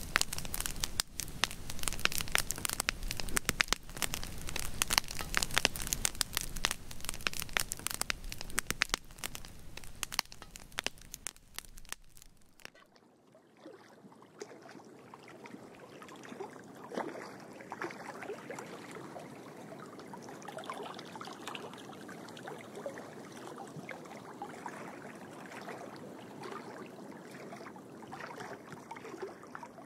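Dense crackling for about the first twelve seconds. It then cuts off abruptly, and a much quieter, soft rushing sound follows.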